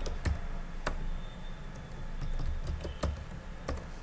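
Computer keyboard keys pressed one at a time while a password is typed, giving a few separate, irregularly spaced clicks.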